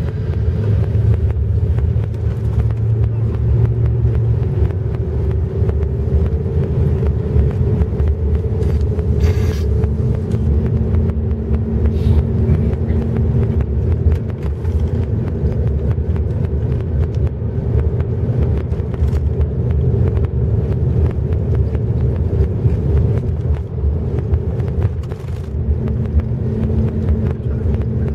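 A car's engine and road noise heard from inside the cabin while driving, a steady low rumble with a constant hum, and a few brief clicks.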